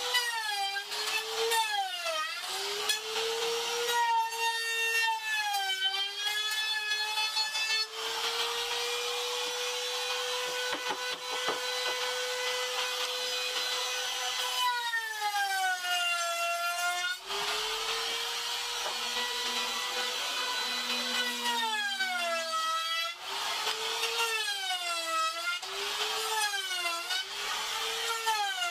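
Electric trim router routing a profile along the edge of a plywood board. Its high motor whine dips in pitch again and again as the bit bites into the wood and picks back up between bites, and it holds steady for several seconds in the middle.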